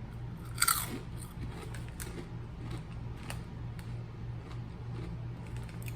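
A bite into a crunchy snack chip about half a second in, loudest at the start, then crunching as it is chewed.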